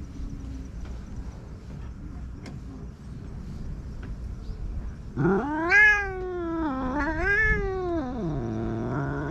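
Orange-and-white stray cat meowing: a long, drawn-out meow with a wavering pitch starting about five seconds in, followed by a lower meow that slides down near the end.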